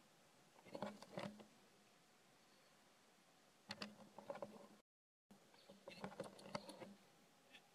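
Faint crackling rustle of dry leaf litter under a small monkey's feet and hands, in three short bouts; the sound cuts out completely for a moment about five seconds in.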